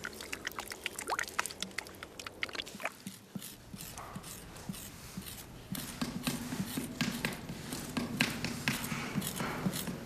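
Wet clay squelching and smacking in quick, irregular small clicks as it is worked by hand. A faint steady low drone comes in about halfway through.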